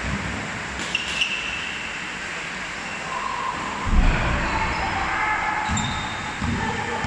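Badminton rally in a reverberant sports hall: sharp racket-on-shuttlecock hits about a second in, with high shoe squeaks on the court floor and a low thump about four seconds in.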